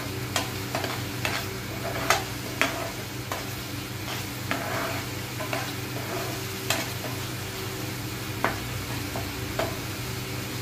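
A spatula stirring and scraping a thick egg-and-onion masala in a non-stick frying pan, knocking against the pan at irregular moments over a light sizzle of frying.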